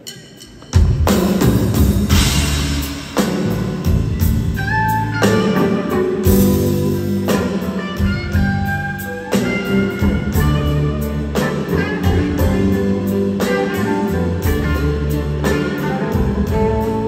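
Full electric blues band playing a slow blues: several electric guitars, with gliding slide-guitar lines, over drums, bass and keyboards. The band comes in together about a second in.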